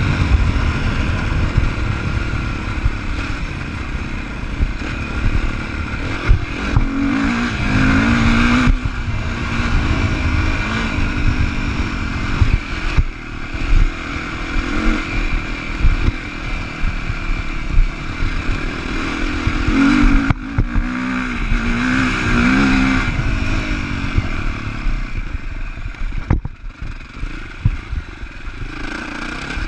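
2015 Sherco 450 SEF-R four-stroke single-cylinder enduro bike running along a bumpy grass trail, the engine note climbing and falling with the throttle, clearly rising twice, about a quarter of the way in and again about two-thirds in.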